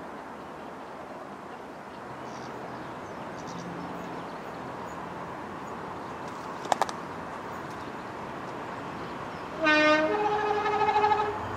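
Class 50 diesel locomotive sounding its two-tone horn as it approaches: a short low note, then a longer higher note, near the end. Before the horn there is a steady rumble of the approaching train.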